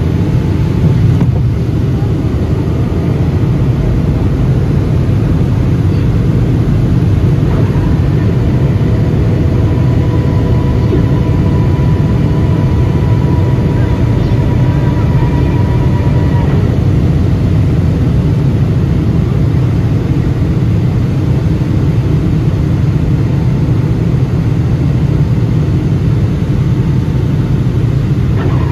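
Steady low rumble of a Boeing 757-200 in flight, engine and airflow noise heard inside the cabin from a window seat beside the wing.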